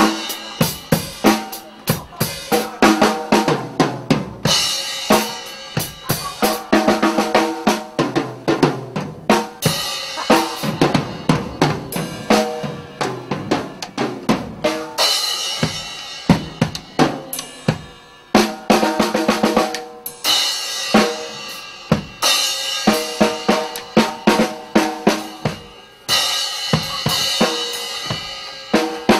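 A live rock band playing loudly, led by a drum kit beaten hard and fast: snare and bass drum hits with recurring stretches of crashing cymbals, and the band's pitched parts underneath.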